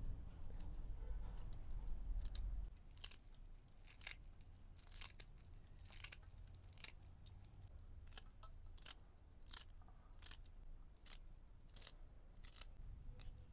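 A run of crisp, short cutting strokes, roughly one or two a second and slightly uneven, typical of food being cut in a kitchen. A low hum underneath stops about three seconds in.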